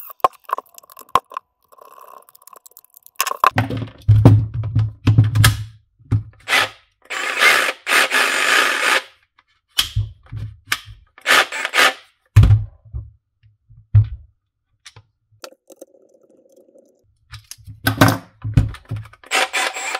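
Knocks, clunks and scrapes of a cordless jigsaw's plastic housing and metal gearbox parts being handled and fitted together during reassembly, with a longer scraping stretch about seven seconds in.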